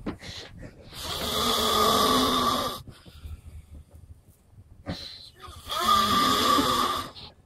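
A man snoring in his sleep: two long, loud snores, each close to two seconds, about four and a half seconds apart.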